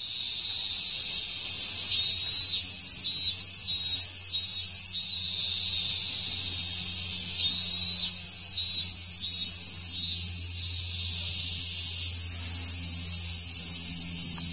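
Chorus of cicadas: a loud, steady high-pitched hiss with short chirping phrases repeating over it. A low steady hum runs underneath.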